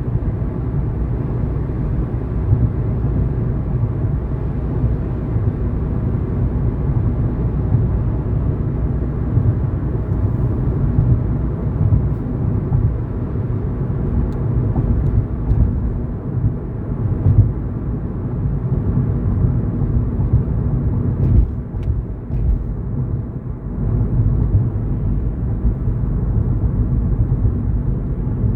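Steady low rumble of a car driving along the road: tyre, road and wind noise as picked up by a dashcam. A few faint clicks sound over it, and the level dips briefly about three-quarters of the way through.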